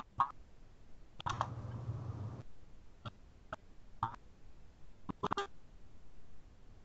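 Scattered keystrokes on a computer keyboard: single clicks spread out, with quick runs of keys about a second in and again around five seconds in. A low, muffled sound lasting about a second comes with the first run.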